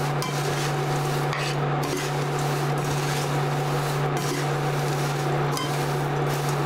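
Wooden spatula stirring and scraping dry, crisp thin-poha chivda around a steel pan, a continuous rustle with light scrapes and ticks against the metal. A steady low hum runs underneath.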